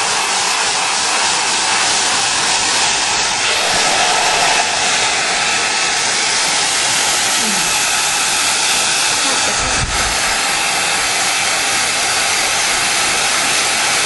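Hair dryer running steadily, an even rushing noise with no change in pitch or level.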